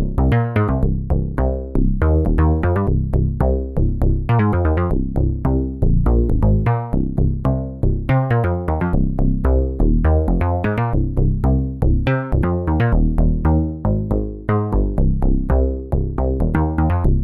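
Waldorf Protein synthesizer playing a sequenced patch: a fast run of short plucked notes, each with a sharp attack and quick decay, over held low bass notes.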